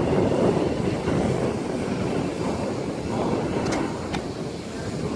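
Engines of an American Airlines regional jet climbing out just after takeoff: a steady low rumble with no clear tone.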